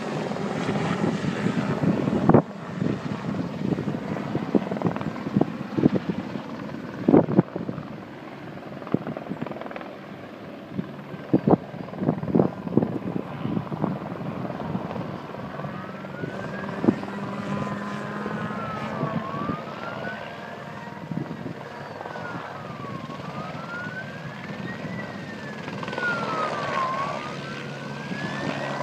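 A steady aircraft drone from firefighting aircraft over a bushfire, with a few sharp knocks in the first half. From about halfway, an emergency-vehicle siren wails up and down, one rise and fall about every four seconds.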